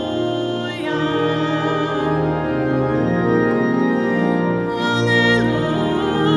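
Church organ holding sustained chords under a solo singer with a strong vibrato. The voice drops out for a couple of seconds in the middle while the organ carries on, then comes back near the end.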